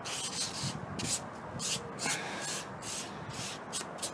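Paper towel rubbed back and forth over an oiled flat steel blank, a short dry swish with each stroke, about three strokes a second.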